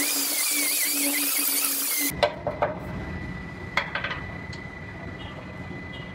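A hand-held air tool running with a loud hiss and a wavering whine for about two seconds, then cutting off suddenly. A low rumble, a faint steady whine and a few light clicks follow.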